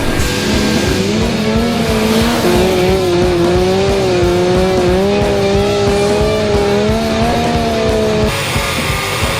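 Car engine held at high revs, the pitch rising and then wavering, with tyres squealing as in a drift or burnout, over background music; it cuts off abruptly about eight seconds in.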